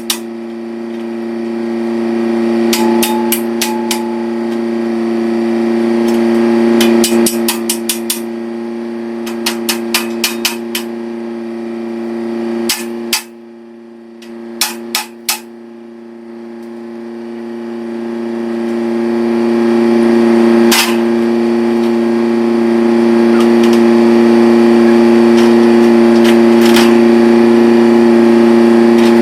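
Electric welder humming steadily and growing louder, with clusters of short sharp clicks and crackles in the first half.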